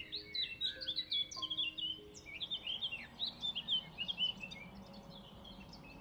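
A songbird singing a fast run of varied high chirping notes, loudest through the first four seconds and fainter after, over soft background music.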